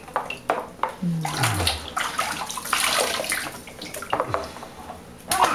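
Bathwater splashing and sloshing in a bathtub as a toddler is scrubbed with a washcloth, in irregular small splashes. About a second in there is a short low sound that falls in pitch.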